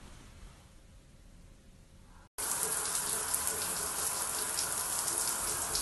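Faint room tone for about two seconds, then suddenly a running shower: a steady spray of water onto the shower floor.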